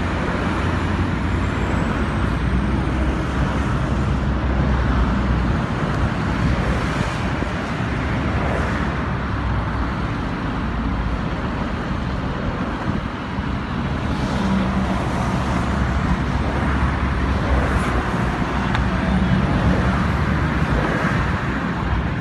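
Heavy diesel recovery trucks' engines running steadily at standstill, with motorway traffic passing.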